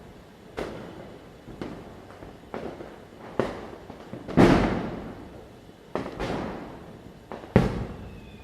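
Diwali firecrackers bursting one after another: irregular sharp bangs roughly every second, each with a fading echo. The loudest bang comes about halfway through and rings out for about a second, and two quick bangs follow near the end.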